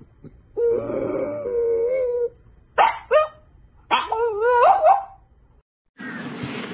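French bulldog howling: a long wavering howl, two short sharp yips just under three seconds in, then another howl that rises and falls in pitch. A steady rushing noise takes over near the end.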